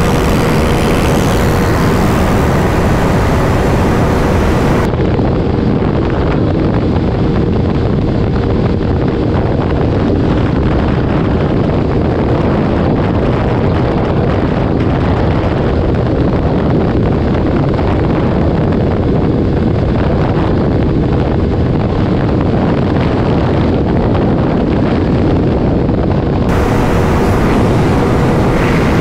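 Motorcycle at high speed on the road: heavy wind rush on the rider's microphone over a steady engine note. The sound goes duller for most of the middle stretch, then brightens again near the end.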